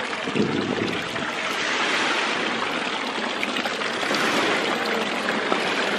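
Steady hiss of falling rain.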